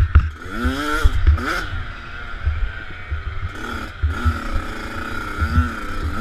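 Motocross bike engine being ridden hard, its revs climbing and dropping several times as the rider accelerates and shifts. Heavy, irregular low buffeting from wind and bumps hits the helmet-mounted microphone.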